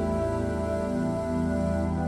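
Slow new-age background music of sustained, held chords over a deep steady bass drone.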